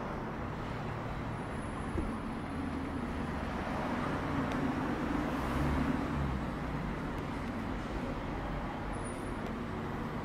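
Street traffic noise, with a motor vehicle passing that is loudest about halfway through.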